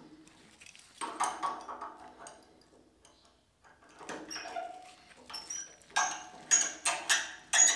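Copper pipe being handled and fitted at a radiator valve: scraping at first, then a quick series of sharp metallic clinks and taps in the second half.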